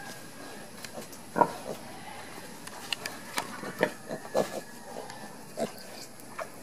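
Six-day-old piglets giving short grunts: one loud grunt about a second and a half in, then a run of quick grunts.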